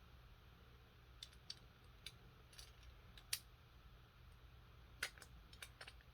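Faint scattered clicks and taps of a Beyblade's small face bolt being handled and tightened, about ten in all, the sharpest a little past three seconds in.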